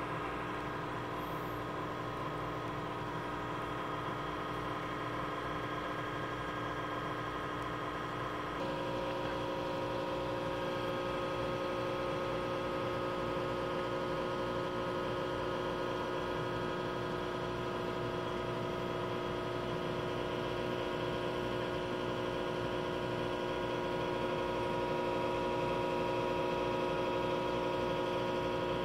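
Steady mechanical hum of aquarium filter pumps, with several held tones; the mix of tones shifts and gets a little louder about nine seconds in.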